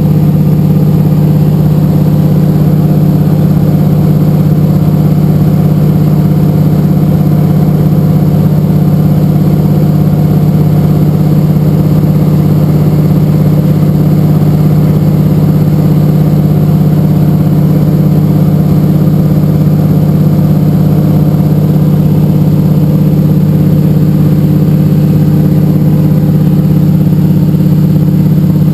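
De Havilland Canada DHC-2 Beaver's nine-cylinder Pratt & Whitney R-985 Wasp Junior radial engine and propeller running at steady cruise power in flight. The note is loud, low-pitched and unchanging, heard from inside the cabin.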